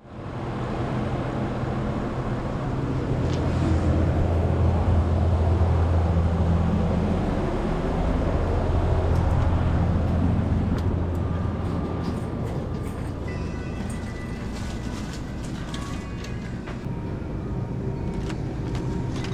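A vehicle driving along, giving a steady low drone of engine and road noise. Faint higher tones and a few clicks come in over it in the second half.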